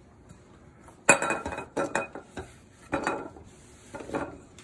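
Cut vegetable chunks dropped by hand into a glass mixing bowl, knocking against the glass and each other: three bouts of clattering, the first and longest about a second in.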